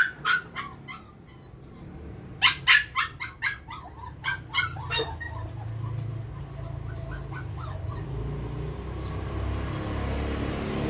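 Dog barking: a few sharp yaps right at the start, then a quick run of about eight barks from about two seconds in, trailing off into fainter short yips.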